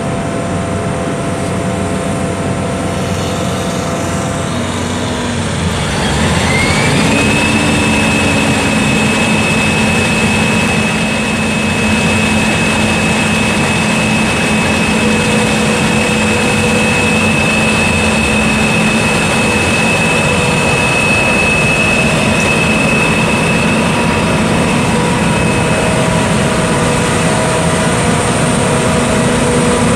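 2012 John Deere S660 STS combine running while parked: a steady engine and machinery sound. About six seconds in it gets louder and a high whine rises, then holds steady.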